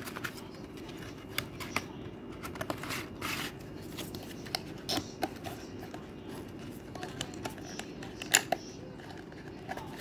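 Light clicks, taps and short rustles of a small cardboard box being handled and turned over in the hands, with one sharper tap a little after eight seconds in, over a steady low background hum.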